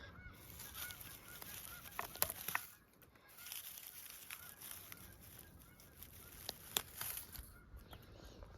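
Faint, repeated honking bird calls, many short calls in a row, with a few sharp clicks or snaps a little over two seconds in and again near seven seconds.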